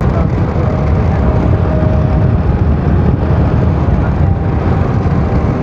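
A moving car's road and wind noise: a loud, steady rush with heavy low buffeting on the microphone, as from a window open to the road.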